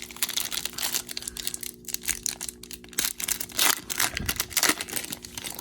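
Irregular crinkling and crackling of plastic packaging being handled, with dense crackles throughout.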